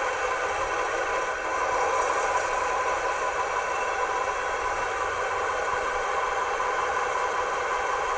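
Sound decoder of an H0 BR 218 diesel locomotive model playing a steady diesel engine idling sound through the model's small onboard speaker.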